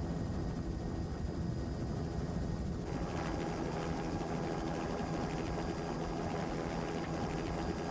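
Steady engine drone with a low hum, its tone brightening slightly about three seconds in.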